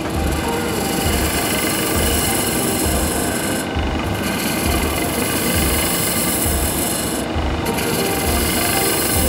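A wood lathe spinning a block of wood while a hand-held turning chisel cuts into its end face: a steady scraping, rasping shave over a regular low throb. The cutting sound thins briefly twice, as the tool eases off the wood.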